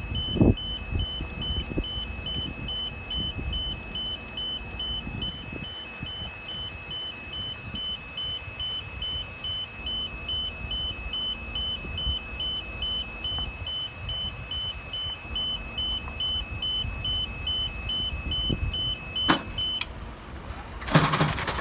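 Genie vertical mast personnel lift lowering, its descent alarm beeping rapidly and evenly over a low rumble. The beeping stops near the end as the platform reaches the bottom, with a knock and then a louder rattle.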